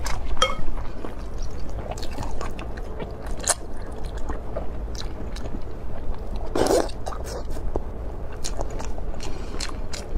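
Close-miked eating: chewing with wet mouth clicks and smacks, and a longer, louder slurp from the bowl of hot-and-sour noodles about six and a half seconds in.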